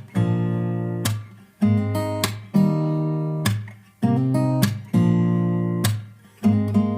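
Background music: an acoustic guitar strumming chords in a steady repeating pattern, each strum ringing and fading before the next.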